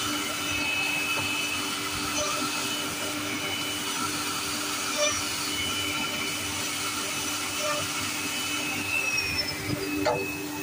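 Five-side CNC drilling machine's spindle routing letters into a laminated board: a steady high machine whine over a constant hum and hiss. Near the end a short falling tone and a brief knock.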